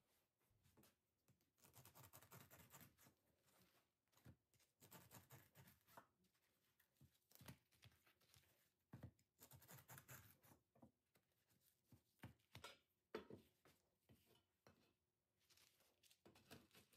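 Near silence with faint, scattered rustles and soft taps of flatbread wedges being handled on a cloth and set into a wire basket.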